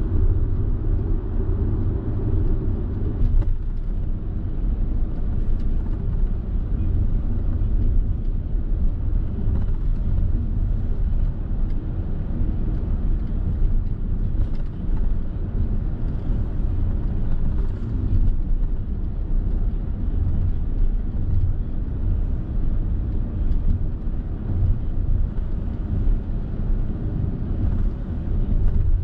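Car driving along at speed: a steady low rumble of road and engine noise.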